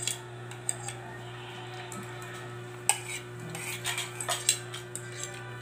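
Metal spoon and fork clinking and scraping on a plate while eating, with a few sharp clinks, the loudest about three seconds in and a quick pair near the end. A steady low hum runs underneath.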